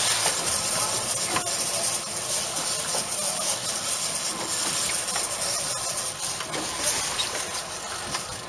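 Steady rushing hiss of wind and sea noise buffeting the microphone of a boat-mounted camera on open water.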